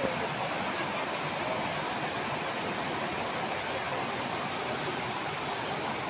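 Steady, even rush of a waterfall, water pouring over rock.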